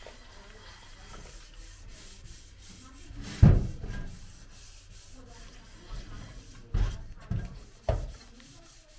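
Dishes being scrubbed by hand in a kitchen sink: a sponge rubbing over a plastic basin and then a cooking pot, with a few clunks as they knock against the sink, the loudest about three and a half seconds in and three more near the end.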